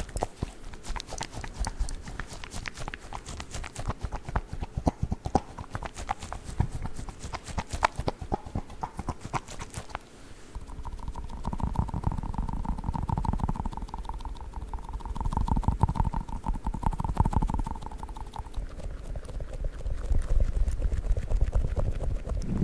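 Squishy dog toy handled close to the microphone: rapid tapping and scratching clicks for the first half, then soft low squishing thumps as it is squeezed, with a steady tone held for several seconds in the middle.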